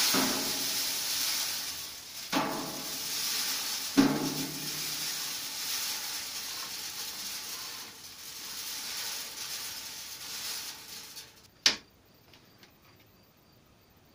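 Dried bee pollen pellets pouring off a dehydrator tray onto a stainless-steel hopper, a steady granular hiss that surges again twice in the first four seconds and tails off. A single sharp knock near the end, as the tray is tapped.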